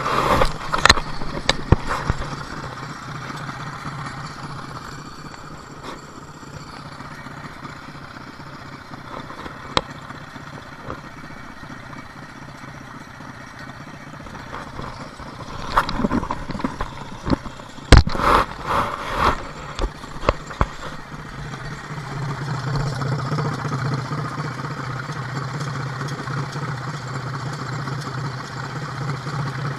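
Wheel Horse garden tractor engine idling steadily, with scattered sharp knocks and clatters, the loudest a cluster about eighteen seconds in. The engine grows louder from about twenty-one seconds in.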